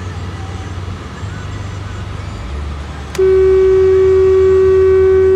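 A long horn blast: one steady held tone that starts about three seconds in and stops sharply after about two and a half seconds, over a low steady rumble.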